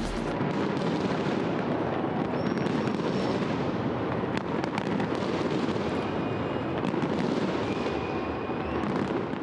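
Big fireworks display going off in a dense barrage: continuous crackling and popping with sharp bangs and a few faint whistles.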